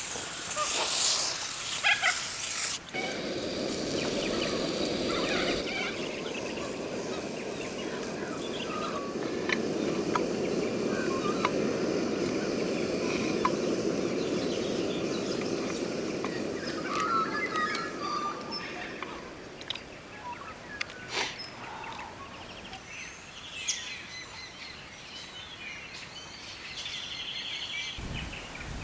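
Outdoor ambience: a loud hiss for the first few seconds, then a steady noise with scattered clicks, and birds chirping now and then in the second half.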